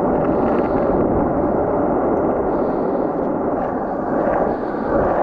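Skateboard wheels rolling on paved pavement: a steady, even rolling rumble.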